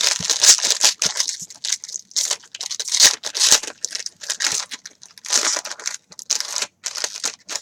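Plastic wrapper of a jumbo trading-card pack being torn open and crinkled in the hands, in a run of irregular rustling bursts.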